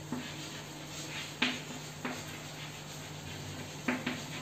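Chalk writing on a blackboard: a few sharp taps and faint scratchy strokes, the loudest about a second and a half in and near the end, over a steady low hum.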